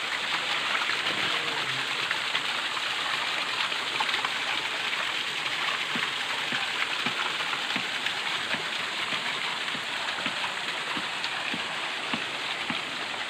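Waterfall and its stream rushing: a steady hiss of falling, running water.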